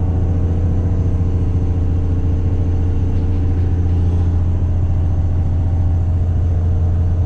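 An engine running steadily at a constant speed, a strong low drone with no change in pitch.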